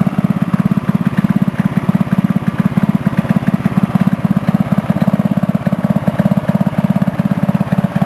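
A 7.5 horsepower riding lawn mower engine running steadily at a low, turned-down idle with a rapid, even chugging beat. It is pulling the driverless mower along at a walking pace.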